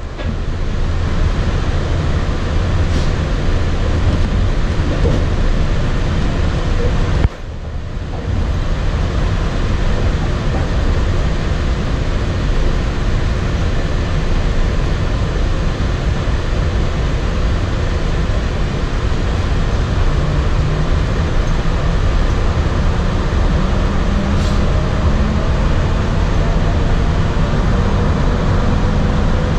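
Walt Disney World monorail train running along its beamway, heard from inside the passenger car: a steady, loud, low rumble with a faint motor whine rising in pitch over the last ten seconds.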